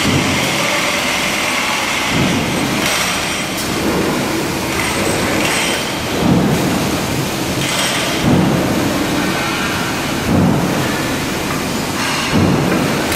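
Electric demolition hammer chipping concrete off a pile head down to its rebar: a loud, dense, continuous clatter with a heavier low thump about every two seconds.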